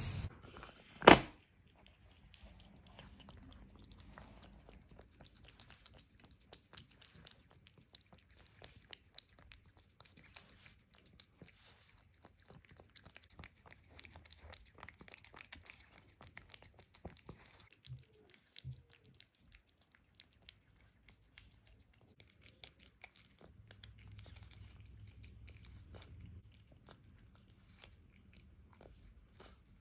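Mini dachshunds chewing and crunching their food: many small crisp crunches with short pauses. There is a single sharp knock about a second in.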